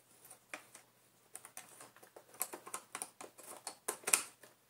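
Irregular light clicks and scratches of hands working on the plastic floor head of a Shark vacuum cleaner. They start sparse, then come faster and louder after about a second and a half.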